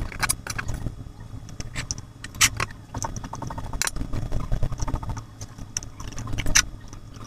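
Rapid small clicks and rattles of cables, wire leads and connectors being handled and pulled off an airbag module's circuit board, played back at several times normal speed.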